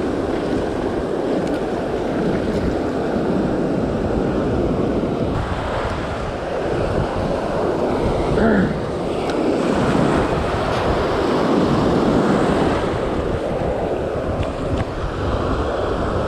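Ocean surf washing and breaking, with wind buffeting the microphone.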